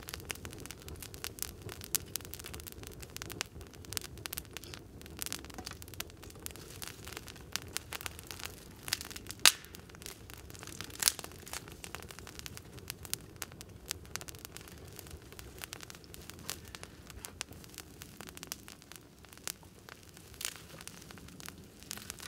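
Wood campfire crackling, with frequent irregular pops and snaps and two louder pops about nine and eleven seconds in.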